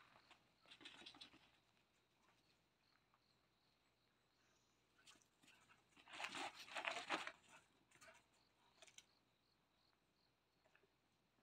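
Mostly near silence, with faint rustling and scuffling: a short burst about a second in and a longer, louder one around six seconds in, as puppies scramble over the cloth of a raised dog cot.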